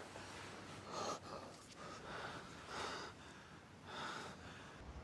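Heavy breathing and gasps from two men in an intimate embrace, several breaths about a second apart.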